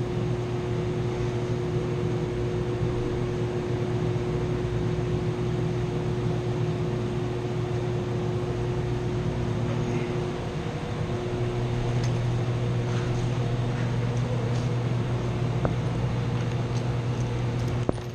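Steady hum of running chiller-plant machinery, with a few faint clicks from a socket wrench on the strainer bolts later on.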